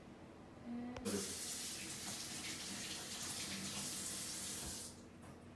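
A steady, water-like rushing hiss starts suddenly with a click about a second in, holds for about four seconds, then fades out near the end.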